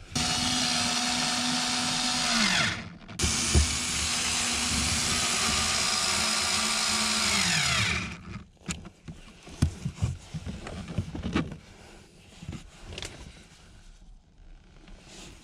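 Cordless electric screwdriver driving screws, in two runs of about two and a half and about five seconds, the motor's pitch falling as it slows at the end of each. After that, only scattered clicks and knocks of handling.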